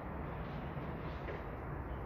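Steady low rumble of outdoor background noise, with a few faint, short bird chirps high above it.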